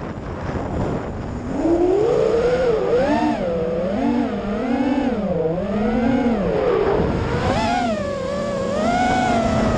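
FPV racing quadcopter's brushless motors and propellers whining, the pitch swooping up and down about once a second with the throttle during freestyle flying, heard through the onboard action camera with wind noise. The whine is weaker for about the first second and a half, then comes in loud.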